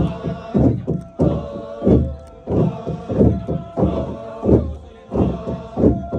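Naga tribal group chanting in rhythm, with loud shouted syllables falling in pitch about once or twice a second over a held sung tone, punctuated by heavy low beats.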